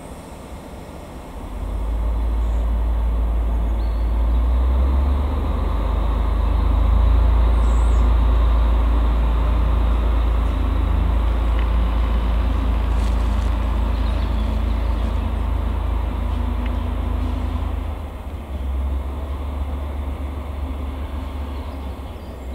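Diesel shunting locomotive's engine running under power as the locomotive moves off along the yard tracks. A deep rumble swells about a second and a half in, holds, and eases back near the end.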